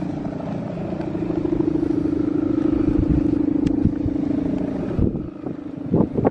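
Hummer bow (guwangan) on a Balinese bebean kite droning in the wind: one steady, slightly wavering tone that fades out about five seconds in, over wind rumble on the microphone.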